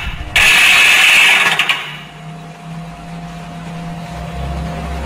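Toshiba AW-A750ST top-load washing machine on spin: the motor and belt run but the tub does not turn, with a loud harsh clacking for about a second and a half, then a quieter steady motor hum, with the clacking returning at the very end. The noise comes from the stripped plastic clutch gear set slipping freely.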